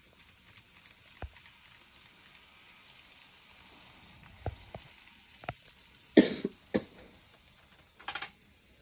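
Model 225 series electric train running past on model track, a faint steady whir. There are several short knocks, the loudest about six seconds in, with a smaller one just after and a brief rattle near the end.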